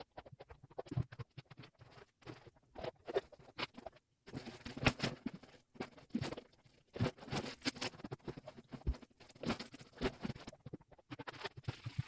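Sped-up household cleaning: a quick, irregular patter of taps, scrapes and rustling as things are wiped and handled, with a brief break about four seconds in.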